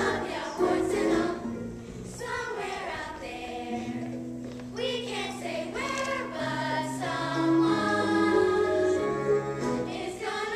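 A chorus of children singing a musical-theatre song in unison over musical accompaniment, with long held notes.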